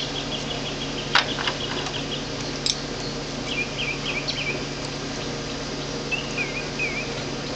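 Outdoor ambience: birds giving short chirping calls twice in the later part, over a steady low hum. A fast ticking trill stops about two seconds in, and a hand tool clicks sharply a couple of times against the panel wiring.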